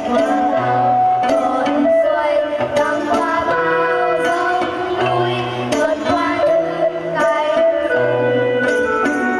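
Music playing: a sustained melody over a steady beat, with a low bass note that comes and goes every few seconds.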